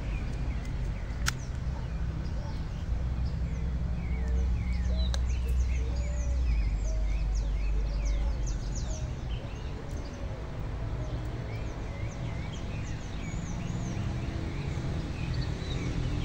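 Many birds chirping and calling over a steady low rumble.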